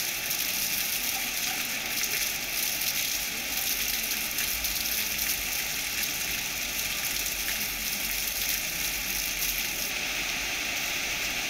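Heavy monsoon rain pouring down, a steady even hiss of rain on roofs and a wet street.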